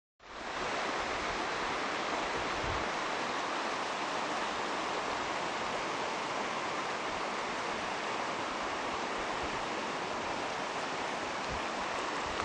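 Steady rush of flowing river water from a mountain stream, an even hiss that fades in at the very start.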